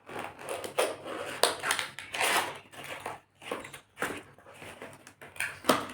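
Packaging crackling and rustling in irregular bursts as a keyboard that is caught in its box is worked loose.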